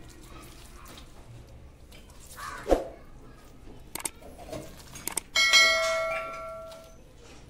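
A few clicks, then a bright bell chime that strikes suddenly and rings out for about a second and a half: the click-and-bell sound effect of a subscribe-button animation. A single thump comes a little before the clicks.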